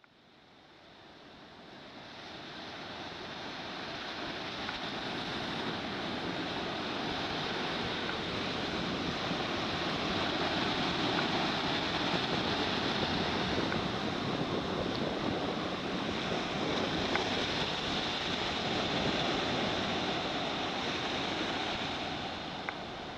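Surf breaking and washing up onto a sandy beach: a steady rush of waves that fades in over the first few seconds.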